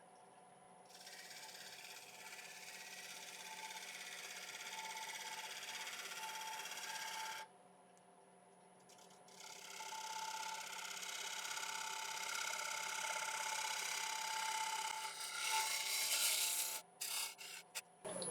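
Bowl gouge cutting the underside of a Monterey cypress bowl on a running wood lathe: a steady hiss of shavings coming off the spinning wood, breaking off twice when the tool is lifted and going stop-start near the end, over the lathe's steady whine.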